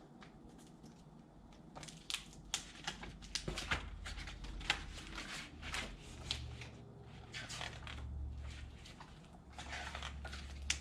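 A hardcover picture book being handled and its pages turned: faint rustling, crinkling and small taps and clicks of paper, with a low hum coming in about six seconds in.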